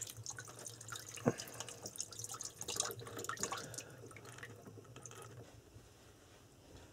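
Hands being washed under a hanging upturned plastic-bottle washstand: water trickling and splashing into a basin below. The splashing dies away after about five seconds.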